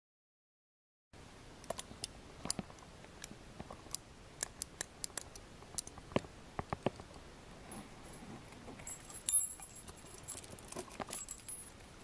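Szco Scorpion steel handcuffs handled in the fingers: a string of small, irregular metallic clicks and taps starting about a second in, with a cluster of brighter clinks and a thin high metallic ring in the last few seconds.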